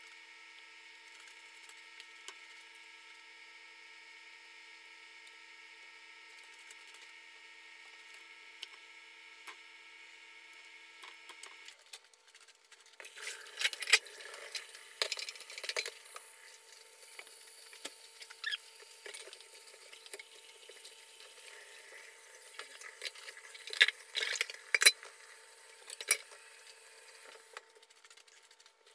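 A steady hum with several held pitches stops abruptly about twelve seconds in. Then pans and dishes are washed in a stainless-steel kitchen sink: water running with repeated clattering and knocking of pans and dishes, the loudest knocks about two seconds after the water starts and twice more near the end.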